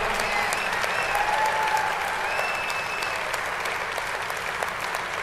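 Large audience applauding, the clapping slowly tapering off.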